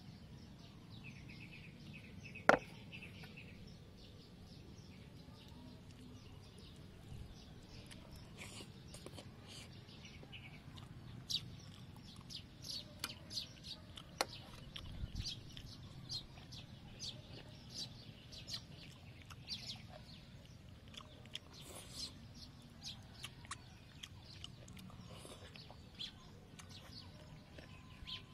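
Birds chirping over quiet outdoor ambience, with one sharp knock about two and a half seconds in as a metal plate is set down on a wooden table. Short high chirps and ticks come thickly through the second half.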